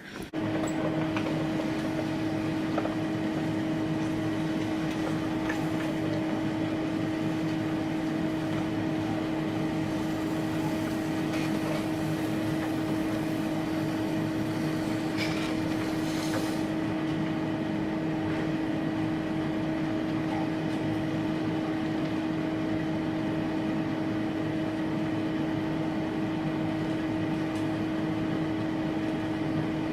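Steady electric motor hum with one constant mid-pitched tone over an even whir, switching on abruptly right at the start and holding unchanged.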